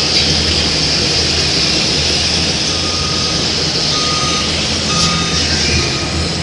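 Radio-controlled construction model running: a steady high motor-and-gear whine over a low steady hum, with a reversing beeper sounding a few short beeps.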